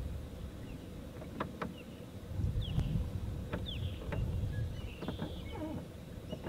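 Hobie Pro Angler 14 kayak moving slowly over calm water: a low rumble with scattered light clicks and knocks from the boat. A couple of short, falling bird chirps come about three seconds in.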